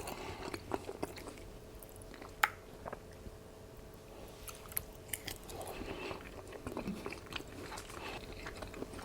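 A person biting into and chewing a fried hot dog dipped in apple butter, with scattered small mouth clicks, the sharpest about two and a half seconds in.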